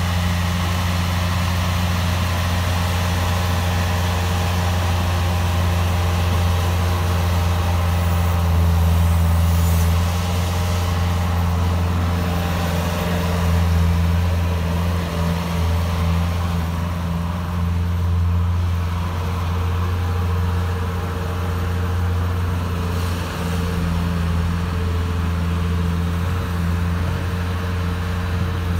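Bobcat S130 skid-steer loader's diesel engine running steadily under working throttle while it pushes snow, swelling a little twice near the middle.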